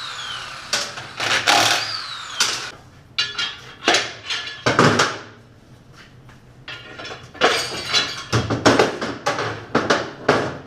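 Irregular metal clanks and knocks with ringing as a 350 small-block Chevy engine is roughly banged apart with tools during teardown.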